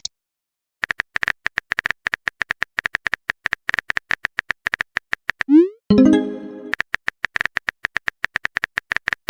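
Rapid, uneven keyboard tapping clicks of a phone texting sound effect, broken about five and a half seconds in by a rising swoosh and a short fading chime, a message-sent notification, and then more tapping.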